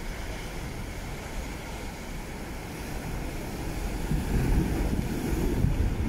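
Sea waves breaking and washing on a rocky shore, with wind buffeting the microphone; the surge grows louder in the second half.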